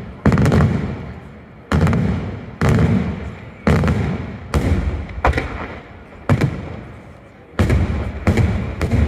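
Aerial fireworks shells bursting overhead in a daytime display: about eleven loud bangs, roughly one a second and quicker near the end, each followed by a rolling echo.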